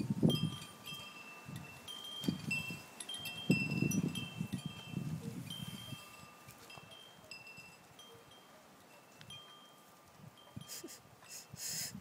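A dog dragging itself on its belly over wood mulch, with rustling scrapes loudest in the first half and a brief sharper scrape near the end. Light metallic chime tones ring on and off at a few fixed pitches.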